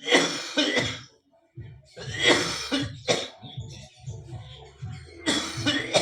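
A man coughing hard in several separate rough bursts: a persistent cough from a feverish chest illness. Music plays underneath.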